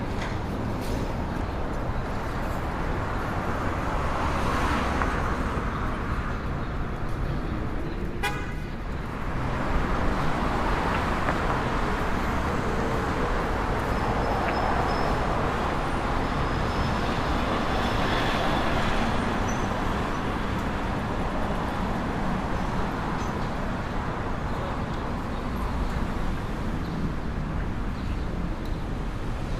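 City street traffic: cars running past in a steady wash of road noise, swelling as vehicles pass, with car horns tooting. A short sharp clack about eight seconds in.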